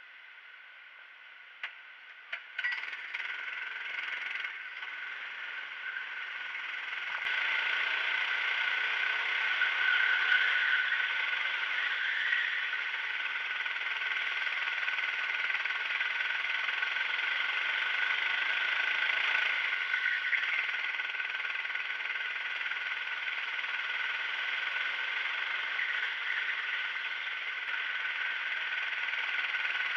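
Two sharp knocks, then a go-kart engine comes in about two and a half seconds in, grows louder around seven seconds in and runs steadily as the kart drives.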